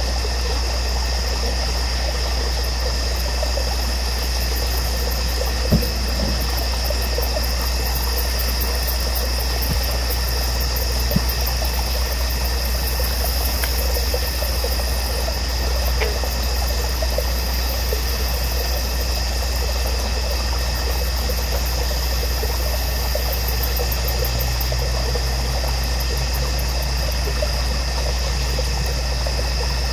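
Steady outdoor background with no distinct event: a constant low rumble under a steady high-pitched drone, with two faint knocks about six and eleven seconds in.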